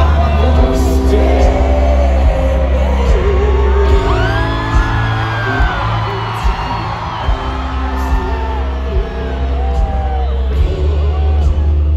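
Live rock band playing with strong bass and drums while the lead singer sings into the microphone. Audience whoops and yells rise over the music.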